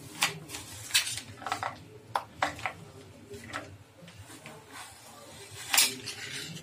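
Small knife slicing through a frozen, ice-cream-filled mango and knocking against the cutting board: a series of irregular sharp clicks and taps, the loudest near the end.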